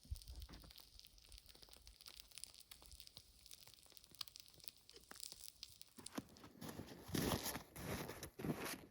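Scattered small crackles and rustling, turning to louder, denser crunching about seven seconds in.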